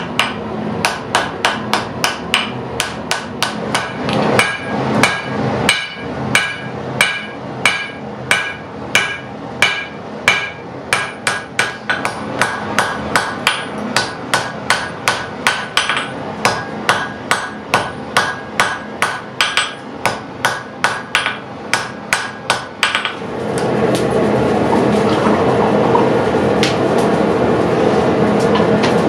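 Hammer blows on steel at the anvil while forging a damascus seax blade: sharp, ringing strikes at about two a second. About 23 seconds in, the strikes stop and a louder steady rushing noise takes over.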